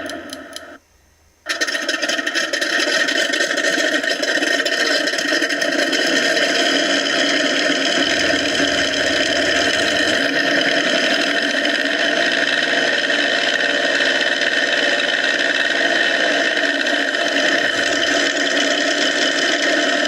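Simulated P-47 warplane engine sound from an RC aircraft sound module, played through its small speaker mounted on white foam board. A rapid rattling sound breaks off just under a second in, and after a short silence the engine sound starts and runs steadily and loud.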